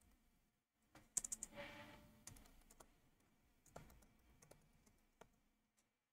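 Faint typing on a computer keyboard: a quick run of key clicks about a second in, then single keystrokes every half second or so.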